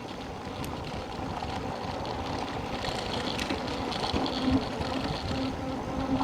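Eahora Urban electric bike rolling over a bumpy, rutted sandy dirt road: steady tyre and rattling ride noise, with a faint hum that comes and goes from about four seconds in.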